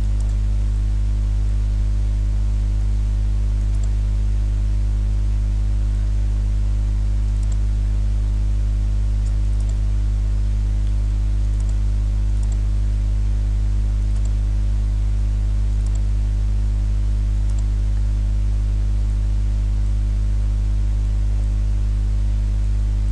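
Loud, steady electrical mains hum picked up by the recording chain, with faint mouse clicks now and then.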